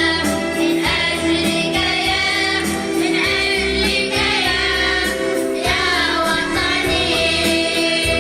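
A choir singing an Arabic patriotic nasheed over backing music with a steady beat.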